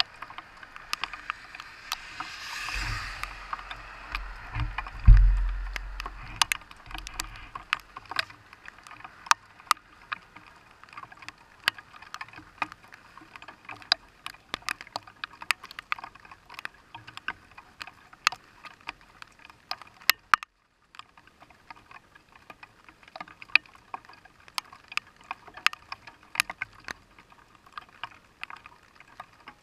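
Raindrops striking the camera's housing close to the microphone: an irregular patter of sharp ticks, a few each second. During the first six seconds wind gusts buffet the microphone with low thumps.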